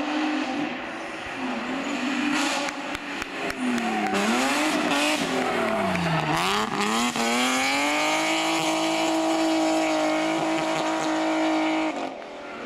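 BMW E36 3 Series race car's engine: the revs drop and climb back twice as it works through a tight corner, then rise and hold high and steady under full throttle for about four seconds before falling away near the end.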